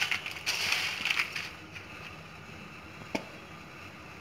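Dry-roasted lentils, seeds and dried red chillies rustling and rattling against a stainless steel bowl as a hand stirs them, for about the first second and a half; then quieter, with one sharp click about three seconds in.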